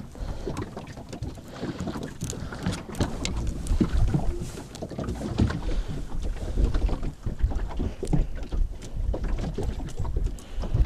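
Wind buffeting the microphone with an uneven low rumble, over many small clicks and knocks from a knife cutting prawn bait on a plastic cutting board and hooks and tackle being handled.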